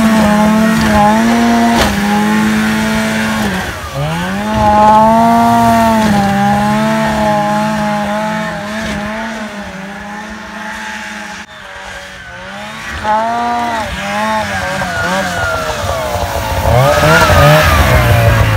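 Arctic Cat 370 snowmobile's small two-stroke engine revving hard, its pitch holding, dropping and climbing again with the throttle. It fades as the sled heads off into the distance midway and grows loud again near the end as it comes back close.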